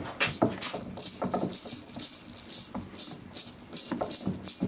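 Metal clicks and rattles of a MAC-10's suppressor and receiver being handled and turned in the hands, a quick irregular series of small knocks throughout.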